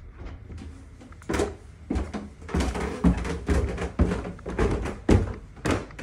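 Footsteps going down a flight of stairs into a basement, a heavy thud about every half second.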